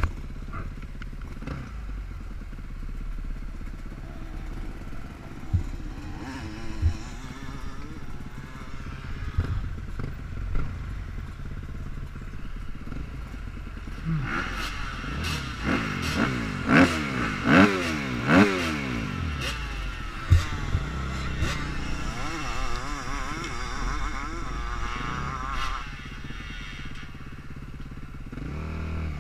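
Dirt bike engines running at idle, with a few knocks. From about halfway, the revs rise and fall several times in quick succession before dropping back to idle near the end.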